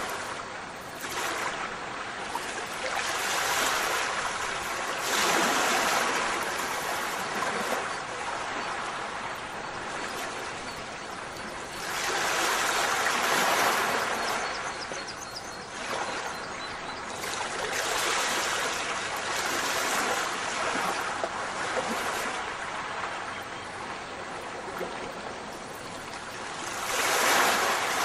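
Ocean surf: a steady rush of water that swells and falls back every few seconds as waves wash in.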